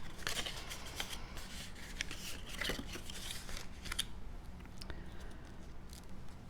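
Cardstock pieces being folded and creased along their score lines by hand: crisp paper crackles and rustling with scattered short clicks.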